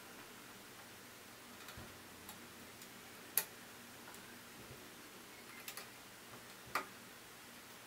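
Small plastic wire-harness connectors clicking as they are handled and plugged into the control circuit board of a Brother PR620 embroidery machine: a handful of short, faint clicks, the sharpest one near the middle and another near the end.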